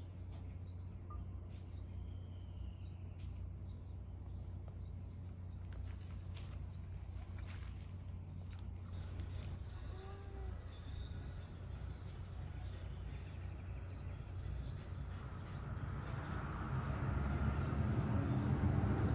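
Small birds chirping repeatedly over a steady low outdoor rumble; over the last few seconds a broader rumbling noise grows louder.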